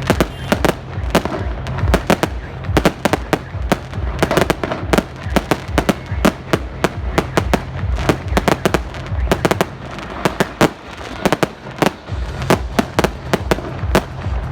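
New Year fireworks and firecrackers going off in a dense, irregular run of sharp bangs and pops, several a second, over a low rumble.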